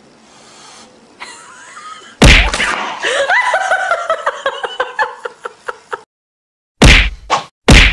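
A foil balloon bursts with one loud bang about two seconds in, then a high-pitched voice cries out with rising and falling pitch. Two short, sharp whacks come near the end.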